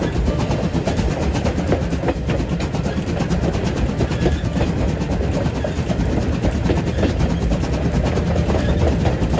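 SL Moka steam train running on the rails: a steady low rumble with the wheels clattering over the track.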